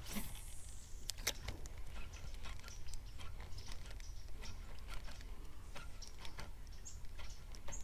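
Faint, irregular clicks and light knocks from a paddle and a rod with spinning reel being handled in a canoe, over a steady low rumble.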